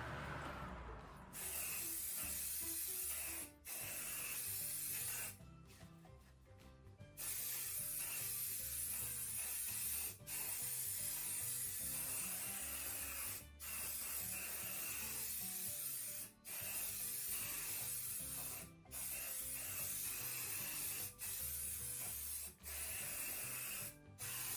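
Aerosol hairspray can spraying in about ten bursts of two to three seconds each, with short breaks between them, as coat after coat is laid onto hair.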